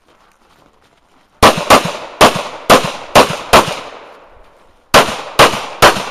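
Pistol shots fired in quick strings: six shots about half a second apart starting about a second and a half in, a pause of just over a second, then three more. Each sharp crack trails off in a short echo.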